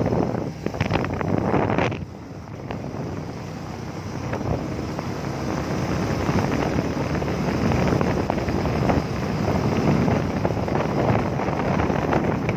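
Wind rushing over the microphone of a moving motorbike, with the rumble of the bike and its tyres underneath. The rush eases about two seconds in, then builds up again.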